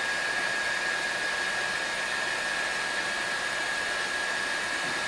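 Kingroon 3D180 3D printer's small cooling fans running steadily during preheat: an even hiss with a constant high whine.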